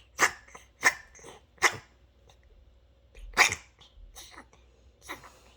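Senior cat coughing in short, harsh bursts: three about two-thirds of a second apart, then a louder one about three and a half seconds in, followed by weaker ones. The cat has chronic nose trouble from long-untreated mites and infections.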